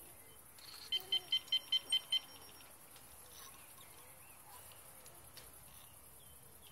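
Electronic carp bite alarm on a rod pod beeping seven times in quick succession, about five beeps a second, as line is drawn across its sensor.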